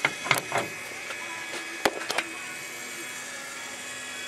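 A few clicks and knocks from handling the remote, then a small electric gear motor starts a faint steady hum with a thin whine as it begins turning the welder's amperage dial.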